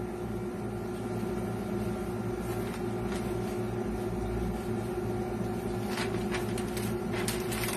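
Steady low mechanical hum of room noise, with a few faint paper rustles near the end as sheets of paper are handled.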